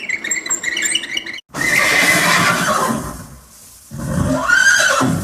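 Recorded horse neighing, with a whinny that rises and then falls near the end.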